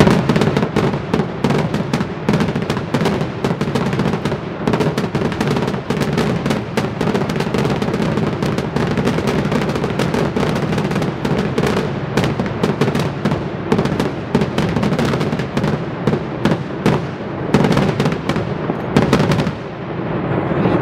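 A fireworks display going off in a dense, rapid string of bangs and crackles over a steady rumble. The bangs thin out briefly near the end.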